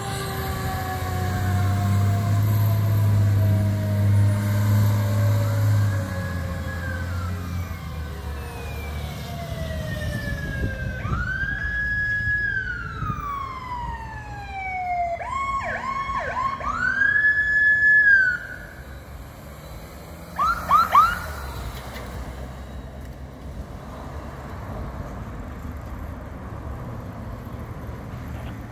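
Emergency vehicle sirens from a fire engine and paramedic unit responding to a call, along with a heavy diesel engine rumble over the first few seconds. Long, slowly falling siren tones give way to an electronic siren that rises, holds and falls, then switches to quick yelps about twenty seconds in. The sirens die away after that.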